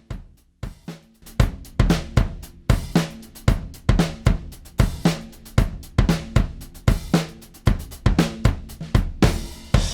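Drum loop of kick, snare, hi-hats and cymbals, the drum-bus material being run through a mastering compressor. A few sparse hits open it, then the full busy beat comes in about a second and a half in.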